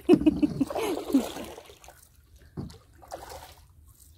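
A woman laughing in short repeated bursts. Then a canoe paddle dipping and dripping, with water splashing and trickling.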